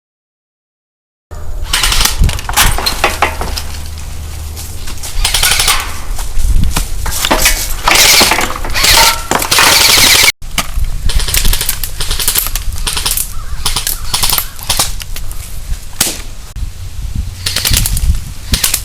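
Loud, rapid gunfire like automatic weapons, starting after about a second of silence and broken by a brief cut about ten seconds in.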